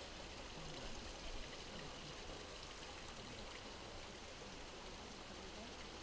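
Faint, steady background noise like flowing water or wind, with no distinct events.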